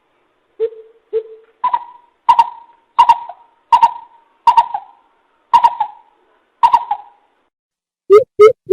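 Coucal calling: a series of hollow hoots, two low ones about a second in, then seven higher ones spaced well under a second apart.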